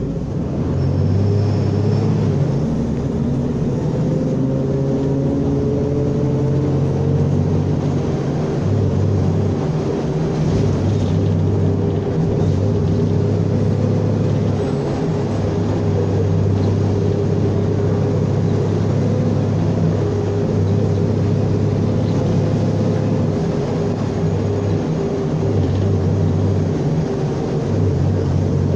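Mercedes-Benz O500U city bus with automatic transmission running under way: a steady low hum with a whine that rises in pitch over the first several seconds, as when pulling away, then holds steady.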